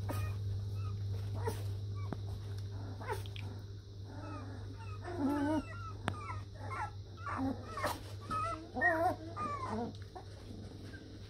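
Three-and-a-half-week-old Border collie puppies whimpering and squeaking, with short wavering high whines coming thick and fast in the second half. A low steady hum runs underneath.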